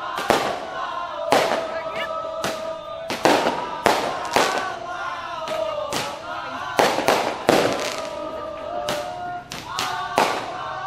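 Loud, sharp bangs at irregular intervals, roughly one to two a second, over a melody of long held, wavering notes.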